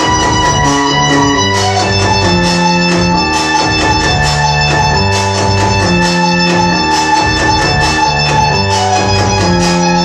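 Electronic music from a modular synthesizer: a looping sequence of low held notes, repeating every few seconds, under a steady high-pitched drone.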